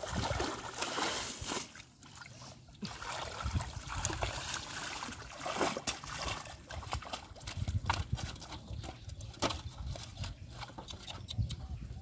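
Hands splashing and scooping in shallow muddy water, with water pouring back off them in irregular splashes, drips and sloshes.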